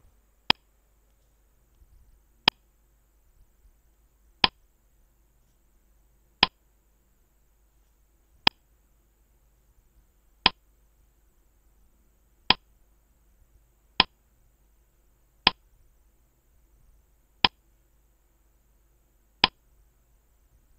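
Countdown timer ticks: eleven short, sharp clock-like ticks roughly every two seconds, with near silence between them, marking the time allowed for a quiz answer.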